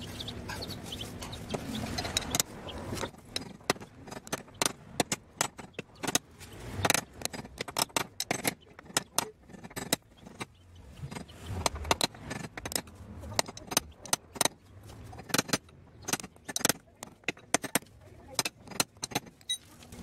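Dozens of sharp, irregular metallic taps, often in quick clusters, as a new metal wheel dust cap is driven into the rear wheel hub through a wooden rod held against it, seating the cap squarely.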